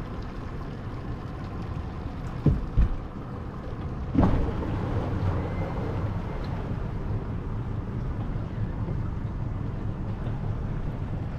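Steady rumble of a moving vehicle with wind noise on the microphone. Two sharp knocks come about two and a half seconds in, and the noise grows louder from about four seconds in.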